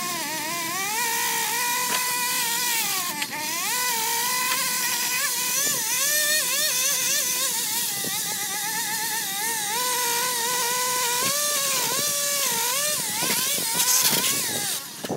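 Gas pole saw's small engine running at high revs, its pitch repeatedly dipping and rising as the chain bites into branches and frees up again. The engine sound drops away abruptly near the end.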